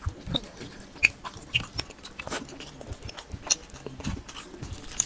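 Close-up eating sounds: chewing and wet mouth smacks while eating curry and rice, a string of irregular sharp clicks with softer low thumps between them.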